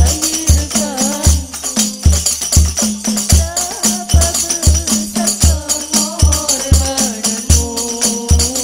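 Hadroh ensemble playing: rebana frame drums with metal jingles keep a steady beat, with deep bass-drum strokes about twice a second. Girls' voices sing a sholawat melody over the drumming.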